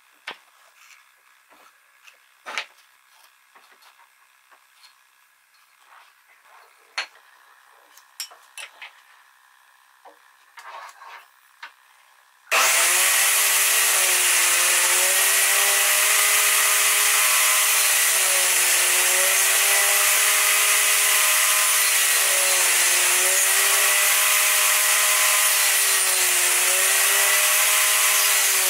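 A few light clicks and taps of wood and clamp handling, then a table saw starts abruptly about twelve seconds in and runs loudly and steadily. Its pitch sags briefly every few seconds as the blade takes a cut through a workpiece clamped in a tenoning jig.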